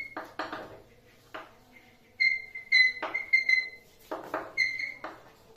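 Chalk writing on a chalkboard: a run of short scratchy strokes, several of them with a thin high squeak as the chalk drags.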